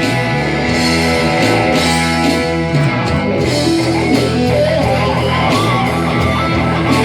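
Loud rock music played by a band, led by electric guitar over a steady low bass.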